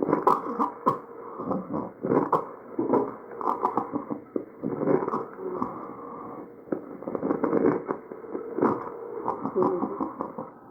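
Breath sounds over a patient's trachea picked up by an electronic stethoscope, heavy with irregular crackles and rhonchi, louder in bursts every second or two with each breath.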